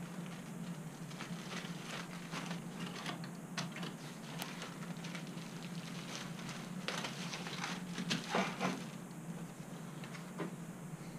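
Clear plastic bag and paper packaging being handled, giving irregular crinkling and crackling that is loudest about seven to nine seconds in, over a steady low hum.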